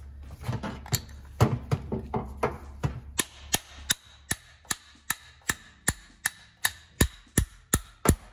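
Light hammer taps on a steel punch, driving the floating wrist pin out of a 5.3 LS engine piston after its retaining clip has been removed. The taps are softer and uneven for the first few seconds, then settle into a steady run of about two to three sharp taps a second.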